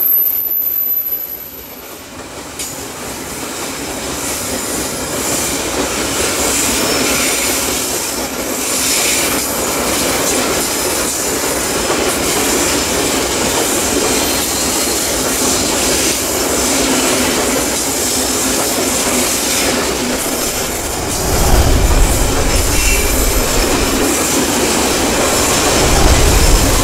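Babaranjang coal train's open hopper wagons rolling past on a curve: wheels squealing against the rail over steady wheel clatter. A deeper, louder rumble comes in about three-quarters of the way through and again near the end.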